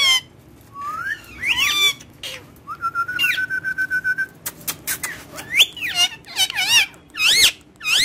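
Indian ringneck parakeet whistling and calling: a run of whistled notes that swoop up and down, a steady trilled whistle held for about a second and a half in the middle, and sharp clicks in between.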